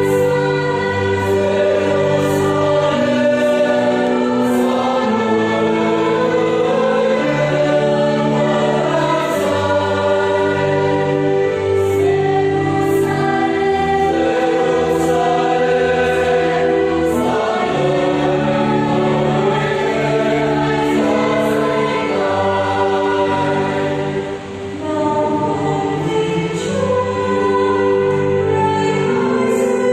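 A church choir singing a Vietnamese responsorial psalm in sustained chords, with a brief dip between phrases near the end.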